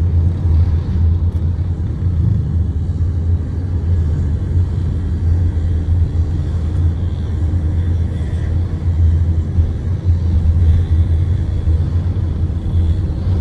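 A car driving steadily: a constant low rumble of engine and road noise with no sudden changes.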